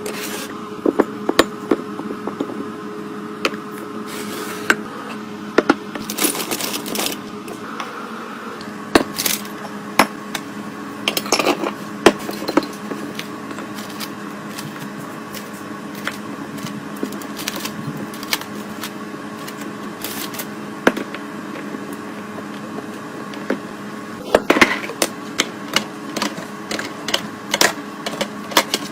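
Refill-and-restock handling sounds: irregular clicks, taps and knocks as containers and packaging are picked up, set down and arranged, with some rustling, over a steady hum.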